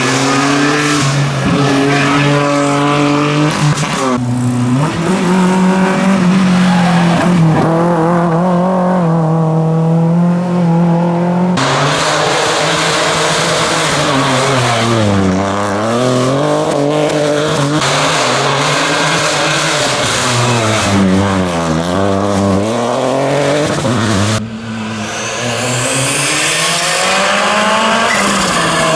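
Rally cars at full stage pace, engines revving hard. The pitch drops and climbs again and again through gear changes, braking and acceleration. The sound cuts abruptly to a different car three times.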